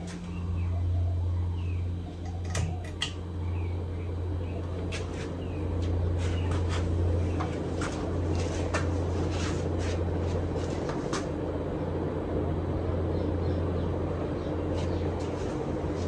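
Casablanca Delta II ceiling fan, fitted with four blades and a Samsung K55 motor on new bearings, running with a steady motor hum under a rush of moving air. The air noise grows a little about six seconds in, and light clicks come and go throughout.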